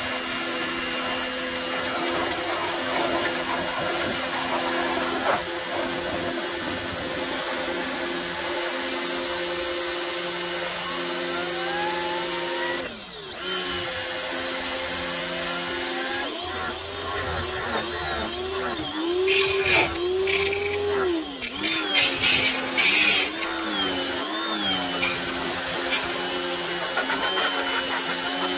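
Pressure washer running, its pump motor humming steadily while the jet of water sprays the underside of a steel mower deck. About halfway through the motor briefly drops out, then its pitch wavers up and down as the trigger is worked, with louder bursts of hissing spray against the metal.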